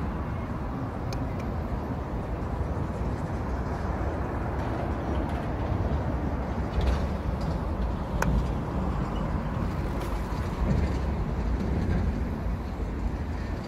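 Steady outdoor background noise with a heavy low rumble that swells slightly in the second half, and a few faint clicks.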